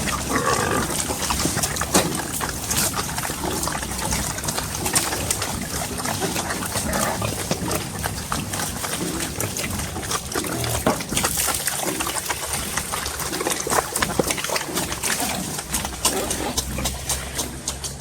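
Native pigs at feeding time, grunting and squealing at one another while they eat, with many quick wet clicks of munching and slurping at the feed.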